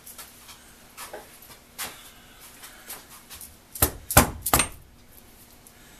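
A hand hammer striking the chuck of a Skil Model 731 rotary hammer, a quick run of about four sharp blows a little before two-thirds of the way in, knocking a part of the chuck loose so it can be removed. A couple of faint clicks of handling come earlier.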